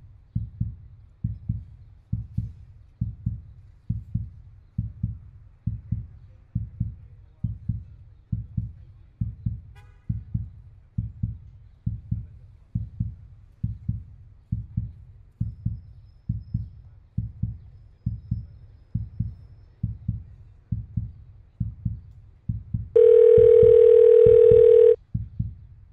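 A heartbeat sound effect thumps steadily all through, a little more than one beat a second. Near the end, a loud steady telephone ringing tone from an outgoing call sounds for about two seconds and cuts off, while the heartbeat goes on.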